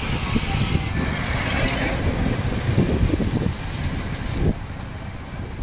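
Motorcycles and scooters running along a road in a group ride, heard from one of the moving two-wheelers as an uneven low rumble. The rumble drops back a little about four and a half seconds in.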